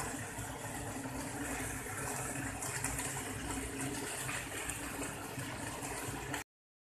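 Steady rushing background noise with a low hum, which cuts off abruptly about six seconds in.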